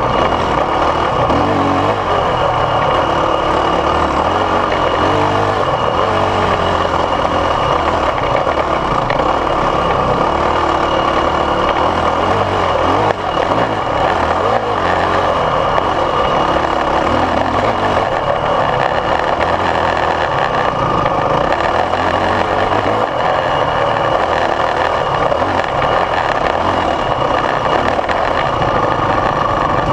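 Dirt bike engine running steadily under load on a trail climb, heard loud and close from the bike carrying the camera, with a dense rushing noise over it; the bike is a 2014 Yamaha WR450F, a single-cylinder four-stroke. The noise dips briefly about 13 seconds in.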